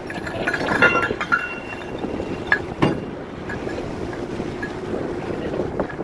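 Wind buffeting the microphone on an open ship's deck, with two sharp metallic clinks about two and a half seconds in, from anchor chain hanging on a deck crane's hook.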